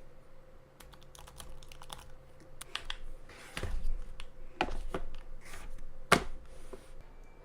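Keys of a Lenovo Yoga laptop keyboard being tapped: irregular clicks, with a few louder knocks and brief rustling.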